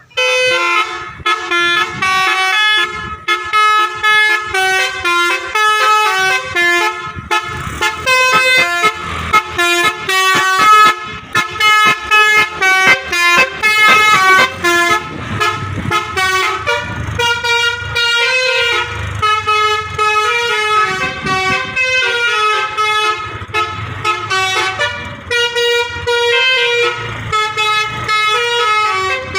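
Loud telolet multi-tone air horn on a Putera Utama bus, starting suddenly and playing a fast melody of short stepped notes.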